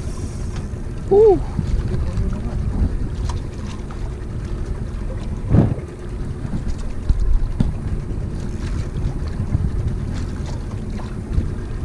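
Wind buffeting the microphone and water lapping around a small wooden outrigger boat, a steady low rumble. There is a short vocal sound about a second in and a single knock about halfway through.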